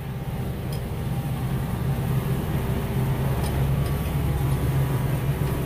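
Kubota M6040 tractor's diesel engine running steadily with a low drone, pulling a hay rake.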